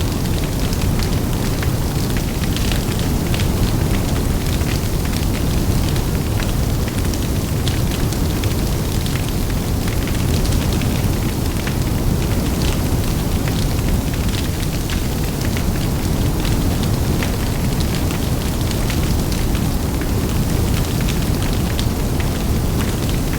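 Large bonfire burning: a steady low roar of flames with dense, sharp crackling and popping.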